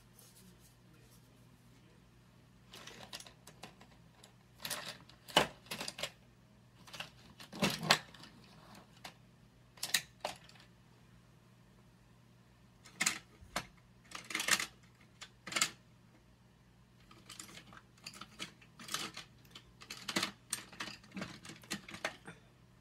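Scattered light clicks and taps of makeup being handled, a brush knocking and working against a plastic eyeshadow palette, coming irregularly and sometimes in little clusters, over a low steady hum.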